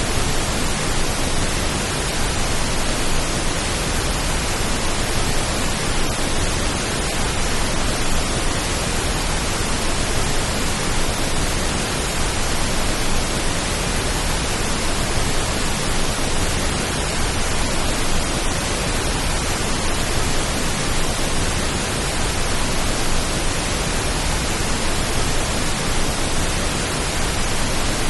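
Steady pink noise, an even hiss spread over low and high pitches alike and meant as a rain sound, with no separate drops or other events in it.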